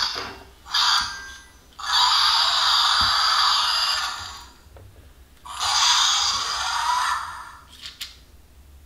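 Fingerlings Untamed T-Rex toy IronJaw giving electronic dinosaur roars from its small built-in speaker as it is handled: two short calls in the first second or so, then two longer ones lasting about two and a half seconds and about two seconds.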